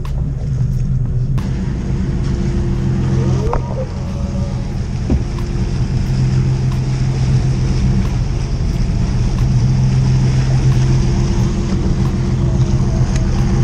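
A yacht's engine running steadily as the boat travels, a continuous low drone, with the hiss of rushing water and wind over it.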